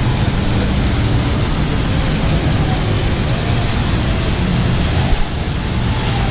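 Steady rush of splashing water from a large tiered outdoor fountain, over general street hubbub.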